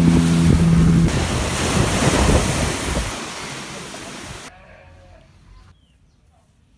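Pirogue's outboard motor running at speed over the rush of spray and wind as the boat cuts through waves. The motor's steady tone stops about a second in, and the rushing water and wind fade away by about four seconds in.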